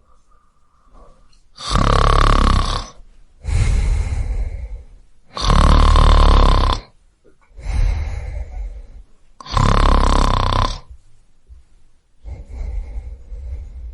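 A man snoring: three loud snores about four seconds apart, each followed by a quieter breath out, then fainter breathing near the end.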